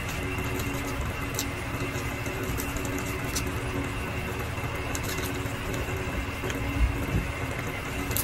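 Steady low mechanical hum with faint, scattered crackling clicks from a pan of pork and chicken adobo simmering in soy sauce and vinegar. One soft bump about seven seconds in.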